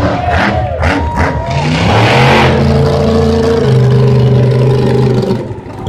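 Monster truck engines at full throttle in a drag race. The engine note climbs about two seconds in, holds high, then falls away near the end.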